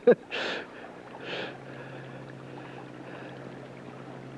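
Steady rushing of a swift river current under a low electrical hum, with two short hissing bursts in the first second and a half.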